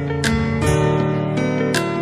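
Background music: strummed acoustic guitar over steady chords, with a sharp percussive hit twice, about a second and a half apart.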